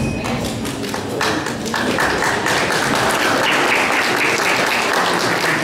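Audience applauding, many hands clapping together, growing fuller about a second in.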